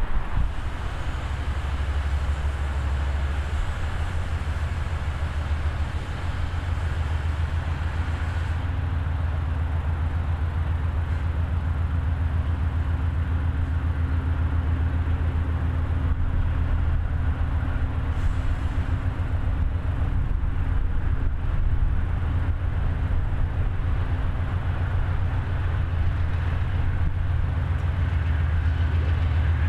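Diesel freight locomotives running, a steady deep engine drone, with a steady hum coming in about eight seconds in.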